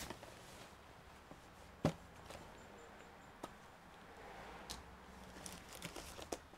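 Faint clicks and taps of small objects being handled on a workbench, with one sharp click about two seconds in and a run of lighter clicks about five to six seconds in.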